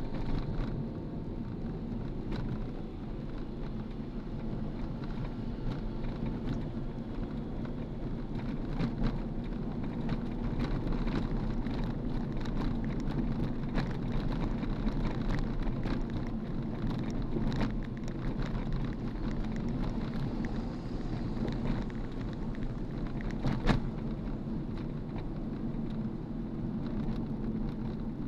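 Steady low rumble of vehicle and road noise, with scattered light clicks and knocks and one sharper knock near the end.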